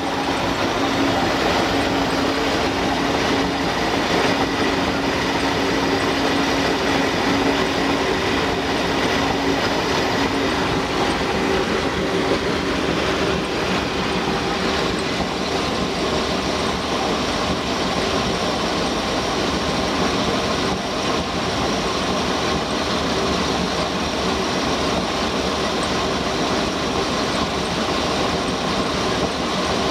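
Carbureted V8 inboard boat engine running steadily on a water hookup, still warming up after a cold start.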